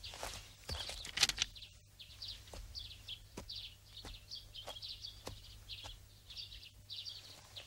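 Small birds chirping, short quick calls repeating every half second or so, with a brief louder burst of noise about a second in.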